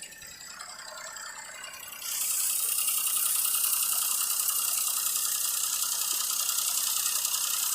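Car air-conditioning system under service: a steady hiss that gets much louder about two seconds in, with a light mechanical rattle, cutting off suddenly at the end.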